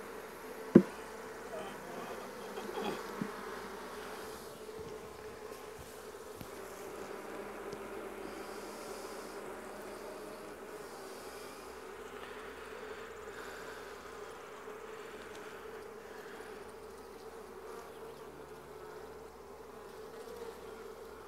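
Honey bees buzzing in a steady drone as frames of the colony are lifted out of a nuc box. About a second in there is one sharp knock, and a few lighter knocks follow over the next couple of seconds.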